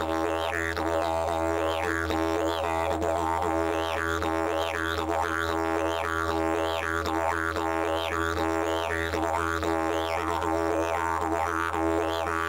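Didgeridoo playing: a steady low drone with a regular, rhythmic pattern of sweeps in tone running over it.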